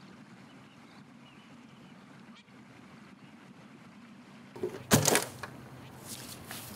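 Faint steady outdoor ambience with a low hum. Near the end comes a sharp knock, followed by rustling and a few lighter knocks.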